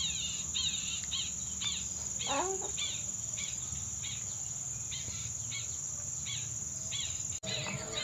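Outdoor insect chorus: a steady high trill, like crickets, with a short falling chirp repeating about twice a second and one lower falling call about two seconds in. The sound cuts out for an instant near the end.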